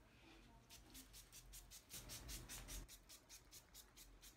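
Near silence, with faint, even, high ticking about five times a second starting just under a second in, and a brief low rumble about two seconds in.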